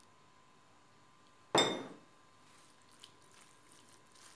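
A small ceramic cup clinks once with a short high ring about a second and a half in as it is emptied over a wooden salad bowl. After it, faint light ticks and scrapes of a wooden spoon tossing boiled noodles.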